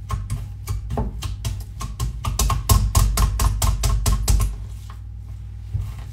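Plunger-type needle meat tenderizer being pressed rapidly and repeatedly into a piece of beef on a cutting board: a quick run of sharp clicks, several a second, loudest in the middle and stopping about five seconds in. The blades pierce the meat.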